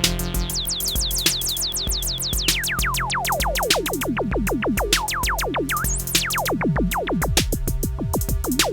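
Electronic music: a drum-machine beat and steady synth bass under a fast run of synthesizer sweeps, several a second, each falling sharply in pitch, the sweeps reaching lower as the run goes on.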